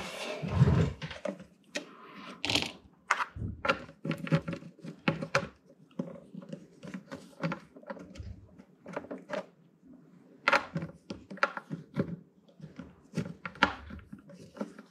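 A jack's nut being tightened onto the metal rear panel of a Roland CR-78 drum machine with a hand-turned 3D-printed plastic socket: a run of small irregular clicks and knocks, with a heavier thump at the start.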